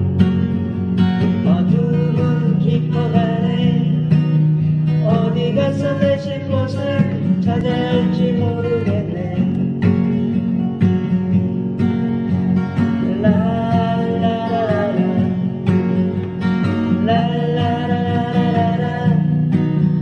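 Music: a song sung to guitar accompaniment.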